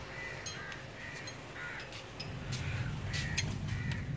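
Crows cawing, a string of short repeated calls, with a low rumble growing louder from about halfway through.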